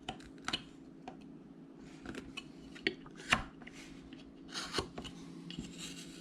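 Carving knife cutting and scraping small slivers of wood from a carved figure: scattered short, sharp cuts at irregular intervals, the loudest just past three seconds in.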